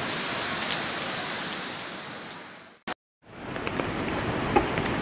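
Steady hiss of heavy rain and rushing floodwater. It fades out and breaks off about three seconds in at a cut, then starts again with more low rumble.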